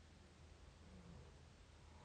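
Near silence in the pause between mouth snores: a faint steady low hum, with one brief faint low sound about halfway through.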